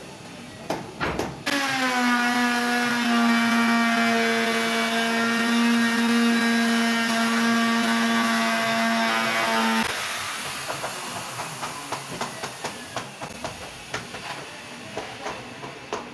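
Handheld electric router starting after a few clicks and running steadily as it cuts along the edge of a wooden rail, then switched off about ten seconds in and winding down, with scattered ticks.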